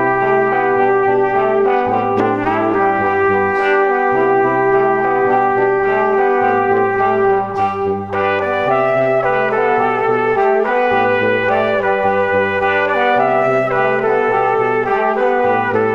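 Background instrumental music with long held notes over a pulsing bass line, dipping briefly about eight seconds in.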